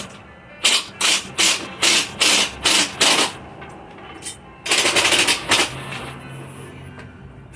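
Seven short bursts of pressurised spray hissing in quick succession, then one longer burst of about a second, as shutter parts are cleaned or lubricated.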